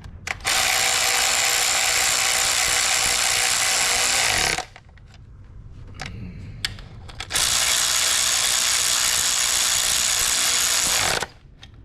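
Cordless electric ratchet running twice, about four seconds each, driving down the ignition coil hold-down bolts; the motor winds down as the first run stops.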